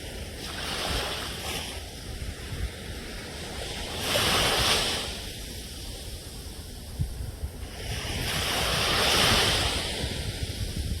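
Ocean surf: waves washing in on a shore over a steady low rumble, swelling three times, about every four seconds, with the loudest surge a third of the way in.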